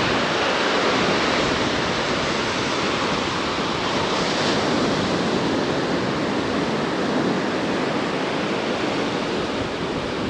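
Small ocean waves breaking and washing up on a sandy beach, a steady surf hiss that swells slightly about four seconds in.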